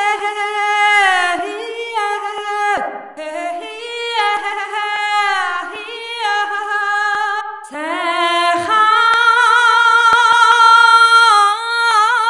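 Sampled female vocal licks from Ethno World 4's 'Female Vocal Licks' Kontakt patch: a woman singing a cappella in ornamented runs that glide and waver in pitch. It comes in three phrases, the last settling into a long held note.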